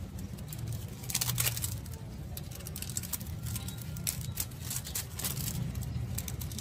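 Secondary winding being pulled off a toroidal transformer by hand: irregular crinkling and clicking of wire and insulation, over a steady low hum.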